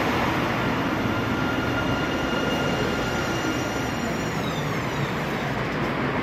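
Electric tram drawing into a station platform and stopping: a steady rumble of wheels on rail with a thin electric whine, which slides down in pitch about four seconds in as the tram comes to rest.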